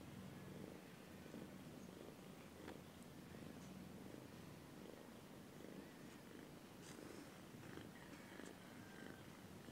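Nursing mother cat purring softly, a low purr that swells and fades in an even rhythm with her breathing.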